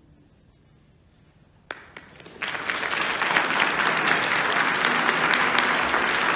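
A guitar ensemble's final note dies away into near quiet. A single clap comes about two seconds in, and then the audience breaks into steady applause.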